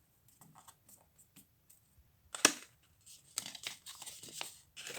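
Sheet of white paper being folded and creased along drawn lines: soft rustles and crinkles, a sharp crackle about halfway through, and a busier run of crinkling near the end.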